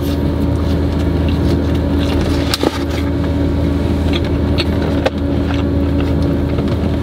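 A car's engine idling, heard from inside the cabin as a steady low hum, with a few light clicks of food and packaging being handled.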